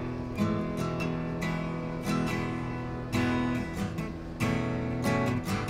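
Solo guitar improvisation, with chords strummed and let ring about once a second.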